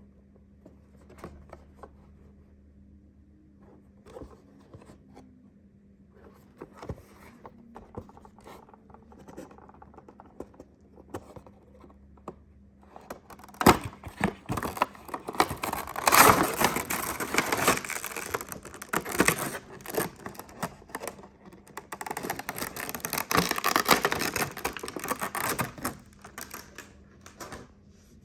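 Funko Pop box packaging being handled and opened: scattered light taps and clicks, then, about halfway through, loud crinkling and rustling of cardboard and plastic in two long stretches.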